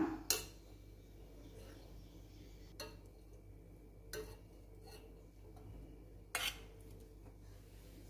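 A steel spoon clinks against a stainless steel pot and plate as boiled baby corn is lifted out of the water. There are four short clinks a second or two apart, the strongest right at the start and near the end.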